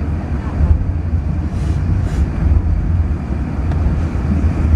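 Steady low rumble of cabin noise inside an Airbus A380 on the ground just after landing.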